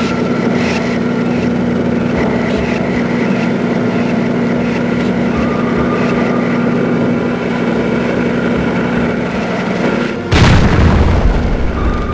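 Background music with held tones over a dense rumbling texture, broken about ten seconds in by a sudden loud boom.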